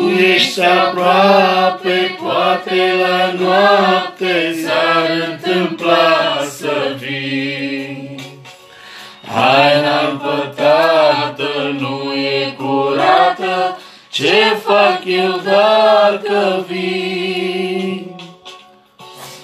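Women singing a Christian hymn in Romanian, in phrases over steady held notes. The singing breaks off briefly about halfway through and again a few seconds later, then stops near the end.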